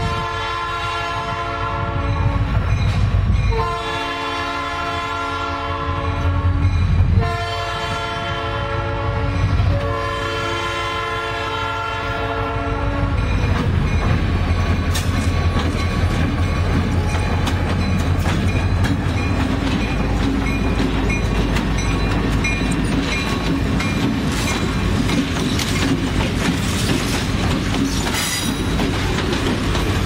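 Diesel freight locomotive's air horn sounding a chord of several tones in four long blasts over about thirteen seconds. Then the locomotive engines run past with a steady low drone, followed by the clatter of wheels over the rail joints as a slow log train rolls by.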